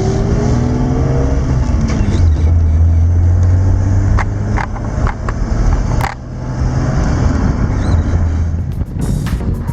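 Car driving: engine and road rumble, with the engine pitch rising as it accelerates in the first second or so. A few sharp clicks come in the middle.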